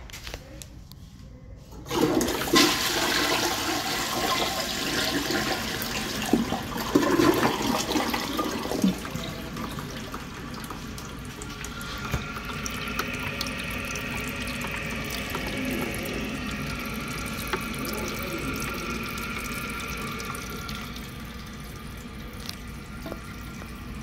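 Briggs Vacuity vacuum-assist toilet flushing: a sudden loud rush of water begins about two seconds in and churns for several seconds. It then settles into the steady hiss of the tank refilling, which fades slowly toward the end.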